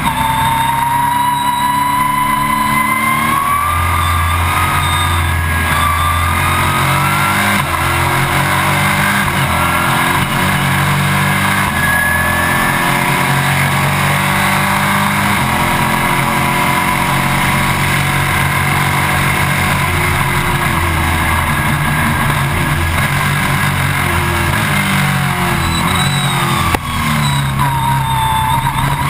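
Stock Car race car's V8 engine and drivetrain heard from inside the cockpit, running on track with engine speed shifting up and down, with a high whine that rises early and then holds steady. This is at a restart during which the fuel pump failed.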